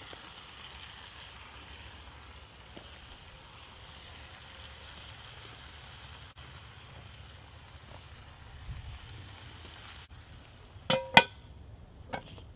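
Food sizzling softly in a cast iron Dutch oven. Near the end, the Cabela's cast iron lid clanks down onto the pot: two sharp, ringing metal strikes close together, then a lighter knock.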